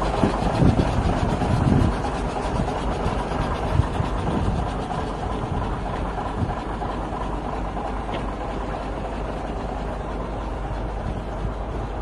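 Diesel engine of a 1997 Daewoo concrete mixer truck running steadily at idle, with a few louder low thumps in the first two seconds.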